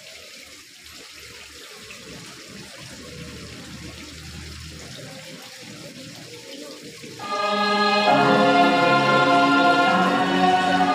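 A choir of students starts singing a slow song in long, held notes about seven seconds in. Before that there is only a faint steady hiss of outdoor ambience.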